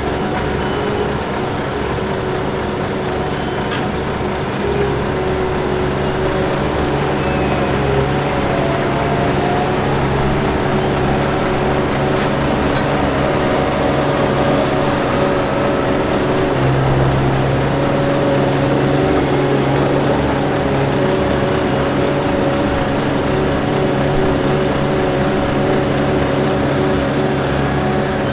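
Diesel engine of heavy road-works machinery on an asphalt paving job running steadily.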